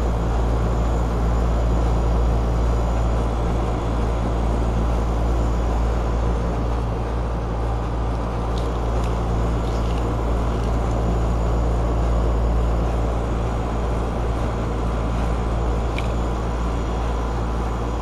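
Lennox central air conditioner's outdoor condensing unit running: a steady, loud hum from the compressor with the rush of the condenser fan, with a few faint ticks partway through.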